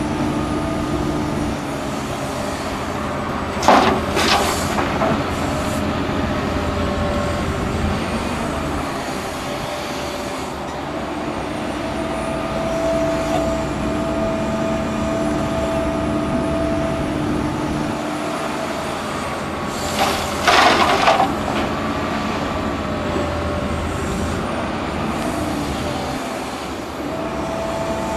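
Hitachi Zaxis 350 excavator's diesel engine and hydraulics running under load as it digs and swings, the drone rising and falling in pitch. Twice, about four seconds in and again about two-thirds of the way through, a loud crash of soil and rocks is dumped into the steel body of the tipper truck.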